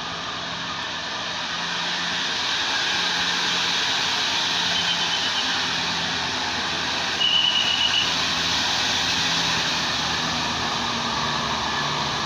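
Heavy vehicle, most likely a bus, with its engine working hard up a steep climb; the dense engine and road noise grows louder over the first two seconds as it approaches, then holds. About seven seconds in a short high-pitched tone sounds for under a second.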